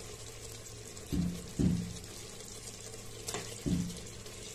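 Peeled potato chunks dropped one at a time into a pot of thick, sizzling mutton curry, landing with three soft thumps, with a sharp metal click between the last two.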